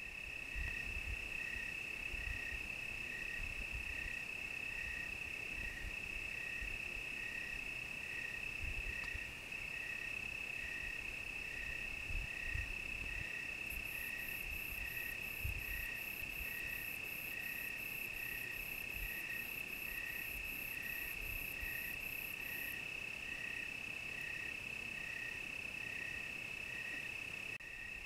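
Crickets chirping: a steady, continuous high trill with a second cricket's regular chirp about one and a half times a second. From about halfway in, a higher-pitched chirp joins for several seconds at a quicker pace, then stops.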